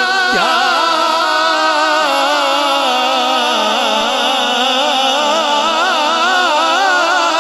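A male naat reciter holding a long, ornamented sung note, its pitch wavering and turning, over a steady low drone.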